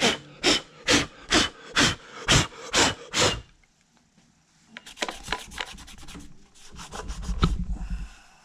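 Hand work on a Technics SL-1200 MK2 turntable's chassis: rhythmic rubbing strokes, about two a second, for the first three seconds or so. After a pause comes a quick run of sharp clicks, then a denser, lower scraping near the end.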